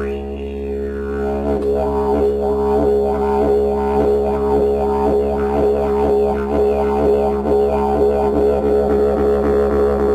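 Music built on a steady low drone, rich in overtones, whose upper overtones sweep up and down in a rhythm about twice a second.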